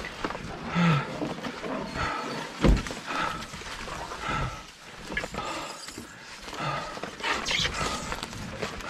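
A man breathing hard under the load of a canoe carried overhead on a portage, a heavy voiced exhale about once a second, with one dull thump about two and a half seconds in.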